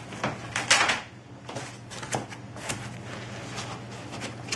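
Unpacking noises: foam packing and cardboard being handled and shifted in a box, a string of short scrapes and rustles, the loudest just under a second in, over a faint steady low hum.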